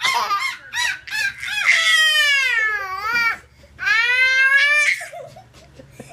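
A baby's high-pitched laughing squeals mixed with a woman's playful monkey-like calls: short quick hoots, then two long sliding whoops, the first dipping then rising, the second rising.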